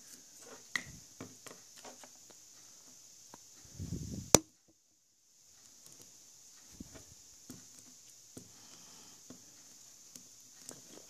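Small scattered clicks and rustles of fingers handling a doll's synthetic hair and a stretchy hair elastic, over a faint steady hiss. One sharp click about four seconds in, followed by about a second of dead silence.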